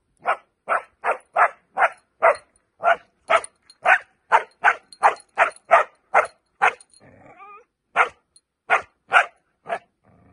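Puppy barking in quick repeated short barks, about two to three a second, broken by a brief whine about seven seconds in: excited barking at a toy it badly wants.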